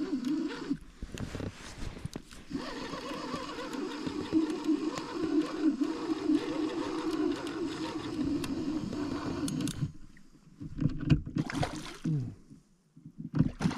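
Boat motor running steadily, cutting off about ten seconds in, followed by a few knocks and handling noises.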